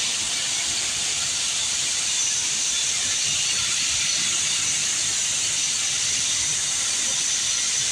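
Soybeans pouring through a grain auger into a bin, a steady, loud hissing rush of grain.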